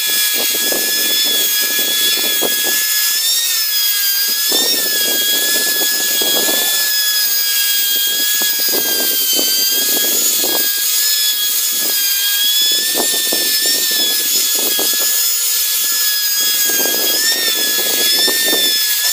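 Handheld electric angle grinder with a gray buffing wheel running at a steady high whine that dips slightly now and then as the wheel is pressed onto a welded metal tube, over repeated bursts of rubbing as it buffs out scratches and weld marks. The motor winds down at the very end.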